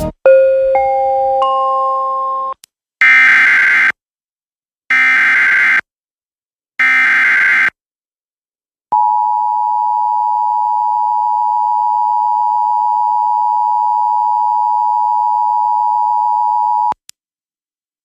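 Emergency Alert System tones. A short rising three-note electronic chime comes first, then three one-second bursts of warbling SAME digital data tones. Then the EAS attention signal, a steady two-tone sound of about 853 and 960 Hz, is held for about eight seconds and cuts off abruptly.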